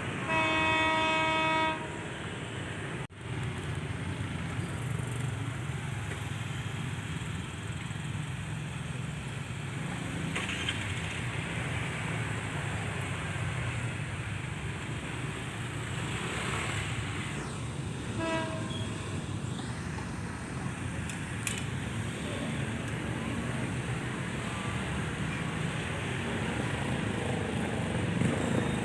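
Horn of a BB 203 diesel-electric locomotive hauling a passenger train, tinny in tone: a blast of about a second and a half near the start and a short toot about two-thirds of the way through, over the steady rumble of the train.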